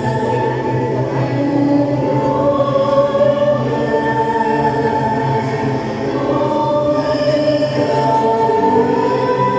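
A church choir singing a slow hymn in long held notes.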